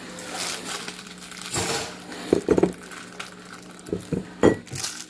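Kitchen handling noises: rustling and crinkling with a few short knocks and clinks, coming in separate bursts.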